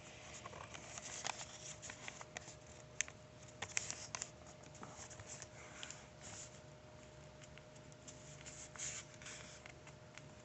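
Faint rustling and soft creasing clicks of a sheet of squared notebook paper being folded by hand, over a thin steady hum.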